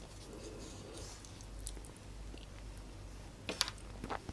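Wooden spoon and fork handling saucy instant noodles, soft and quiet, with a few sharp clicks of the wooden utensils against the tray about three and a half to four seconds in.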